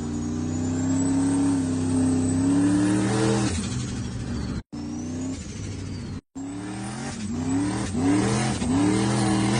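Turbocharged car engine revving. A held rev falls away about three and a half seconds in, and from about seven seconds there is a series of quick throttle blips, each rising in pitch, with turbo flutter as the throttle shuts. The sound breaks off briefly twice in the middle.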